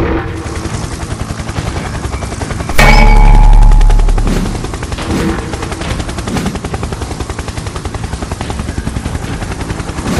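Cartoon helicopter rotor effect, a rapid steady chopping. A heavy boom with a deep rumble breaks in about three seconds in and dies away over about a second.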